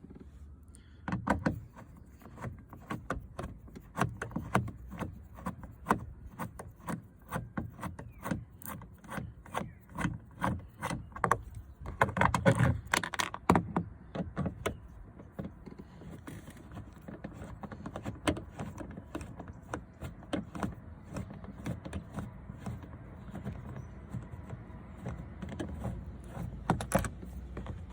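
Socket wrench with a 5 mm Allen socket undoing the bolts on a car door's inner panel: runs of quick clicks with knocks and rubbing of metal on the door, busiest in the first half and sparser after that.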